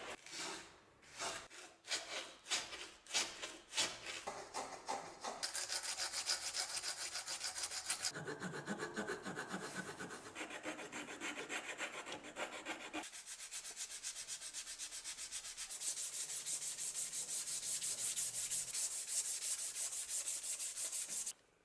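Hand file rasping along the edge of a wooden knife handle. There are separate strokes, two or three a second, at first, then quick continuous strokes that cut off suddenly near the end.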